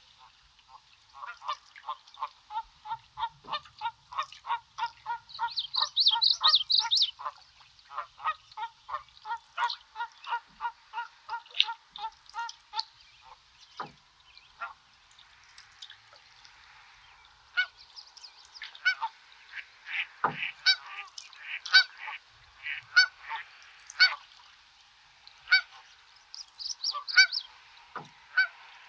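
Geese honking: a rapid run of calls, two or three a second, through the first dozen seconds, with a louder, higher-pitched flurry about six seconds in, then scattered honks later on.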